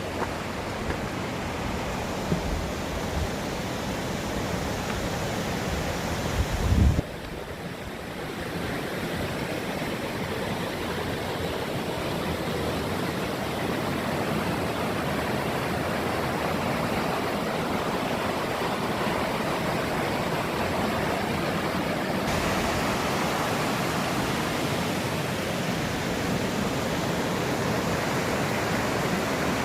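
Flowing stream water rushing steadily, with a brief low thump about seven seconds in.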